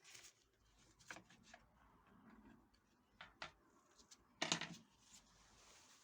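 Faint scattered clicks and taps, with one louder brief clatter about four and a half seconds in.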